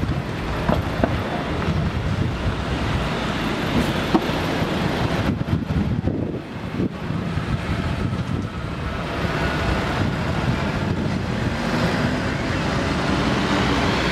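City street traffic noise: engines running and tyres on the road in a steady, dense rumble, easing off briefly about six seconds in.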